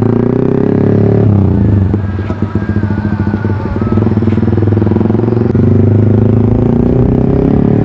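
Motorcycle engine running steadily, its rapid firing pulses clear, with the pitch dipping briefly a second or so in before settling.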